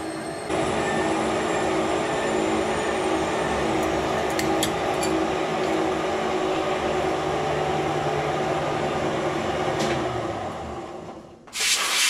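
Metal lathe running steadily while turning a 4140 steel sleeve, a mix of motor and gear hum with cutting noise; it winds down near the end. Then a short hissing blast of compressed air from an air blow gun.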